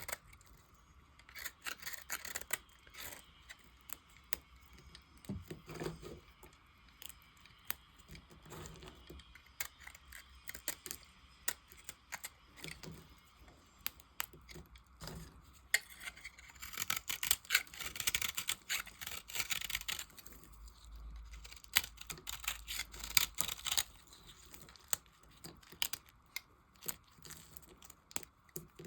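A knife cutting into dry bars of soap: a run of crisp clicks and crumbly scraping as the blade goes through. The crackling thickens into a denser stretch about halfway through, and again a little later.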